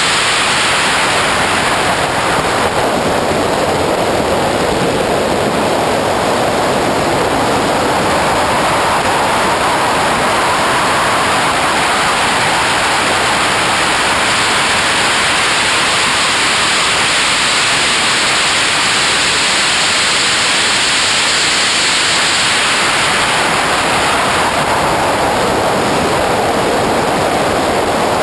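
Loud, steady rushing wind noise over the camera on a Porsche 911SC race car at track speed, with the car's sound buried in it and swelling and easing slowly.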